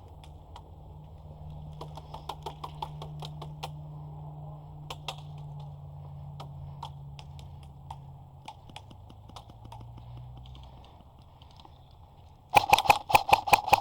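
Scattered sharp clicks over a low rumble, then near the end a loud rapid burst of full-auto airsoft gun fire at about six or seven shots a second.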